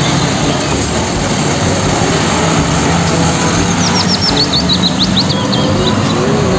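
UD Trucks tractor unit hauling a fuel tank trailer, driving past with a steady engine rumble and road noise. A bird chirps a few times about four seconds in.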